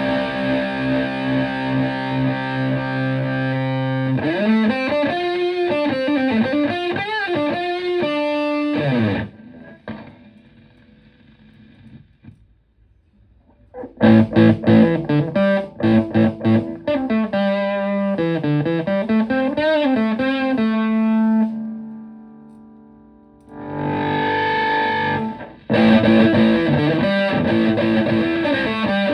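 Electric guitar through a Tone Bender MkI fuzz pedal and a Fender Twin Reverb–style amp, with a thick distorted tone. It plays a held chord, then quick lead runs with string bends, lets notes ring and fade to near quiet twice, and ends on repeated strummed chords.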